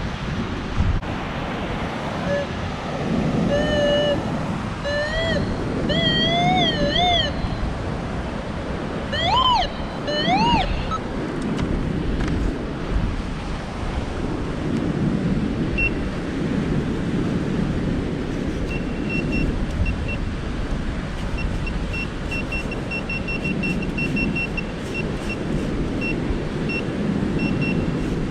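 Surf washing on a sand beach, rising and falling, with wind on the microphone. For a few seconds in the first third, wavering whistled calls sound over it. In the second half a string of short, high, even-pitched beeps comes in.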